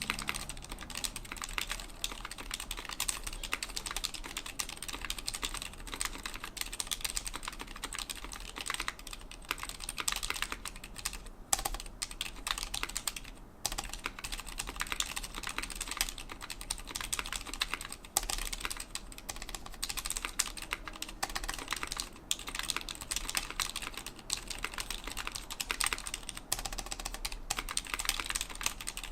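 Continuous fast typing on a custom 60% mechanical keyboard with lubed Cherry MX Silent Red linear switches, PBT keycaps and an aluminium case and plate: a steady stream of soft, muffled key clicks with a few brief pauses.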